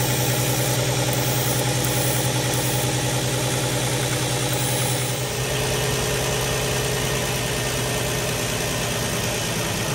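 Audi A3's 3.2-litre V6 engine idling up close, with a steady hiss along with it. The owner traces its rough, uneven idle to a broken PCV valve diaphragm letting air be sucked in through a hole in the back of the valve cover.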